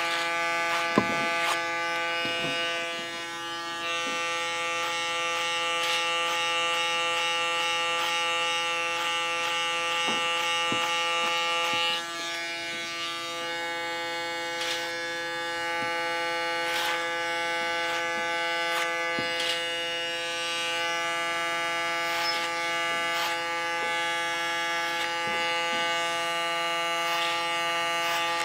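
Electric hair clippers buzzing steadily as they cut short hair at the nape of the neck, with scattered brief clicks as the blade meets hair and comb.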